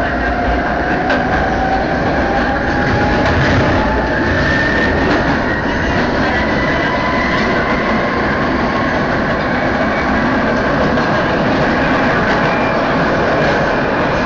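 Madrid Metro train heard from inside the carriage as it pulls away from a station into the tunnel: a steady loud running rumble, with the traction motors' whine slowly rising in pitch as the train picks up speed.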